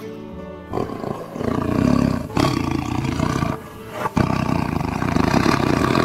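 Tiger roaring and growling in two long stretches, with a short break about three and a half seconds in.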